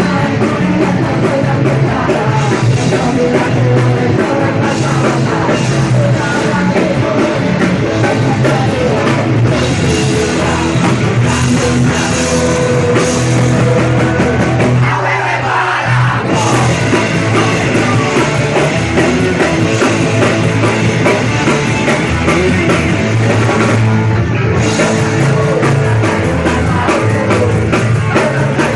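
Punk rock band playing live: electric guitar, bass and drum kit with a male singer singing into the microphone. About halfway through, the bass and drums drop out for a second in a short break before the full band comes back in.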